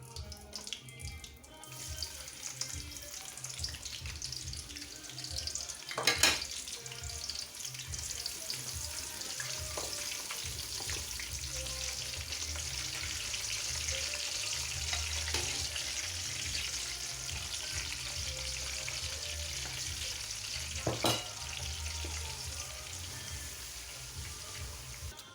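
Oil sizzling in a pot on the stove as the tomato stew base fries, a steady crackling that builds up about two seconds in. Two sharp knocks stand out, one about six seconds in and one about twenty-one seconds in.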